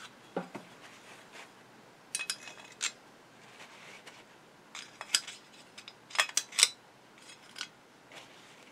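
Screwdriver scraping and clicking inside the housing of a Singer 201-2 potted sewing-machine motor, digging out old greasy crud. Short scrapes and sharp clicks come in scattered clusters, the loudest about six seconds in.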